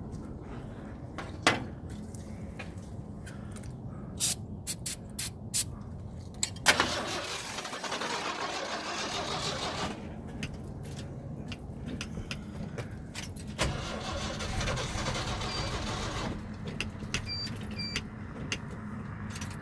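Aerosol starter fluid hissing into the carburettor of a 1979 Ford truck in two sprays of about three seconds each, the first about seven seconds in and the second about fourteen seconds in. A steady low rumble runs underneath, and a few sharp clicks come in the first few seconds.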